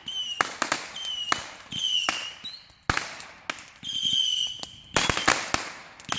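Fireworks going off in rapid succession: a string of sharp bangs, many followed by a short high whistle that fades.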